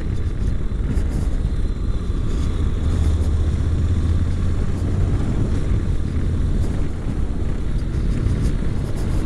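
Honda NC700X's parallel-twin engine running at a steady cruise, with a constant rush of wind and road noise.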